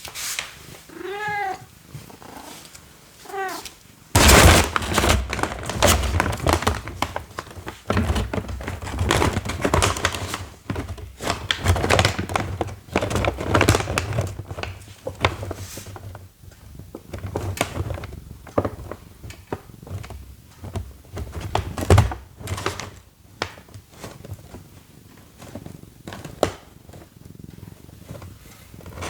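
A cat meows twice near the start. It then scratches, rustles and bumps around in a cardboard box, a continuous scratchy rustle broken by sharp knocks and a few loud thumps.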